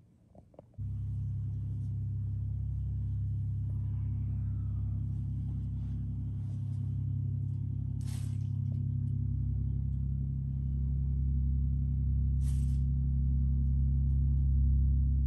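Diesel engine of a loaded inland cargo barge thrumming low and steady as the barge sails past, starting within the first second and growing a little louder in the second half. Two brief hisses cut across it, about eight and twelve seconds in.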